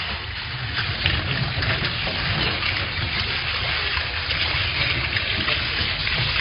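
Steady wet splashing and rustling from a tub packed with small writhing snakes, with scattered small crackles.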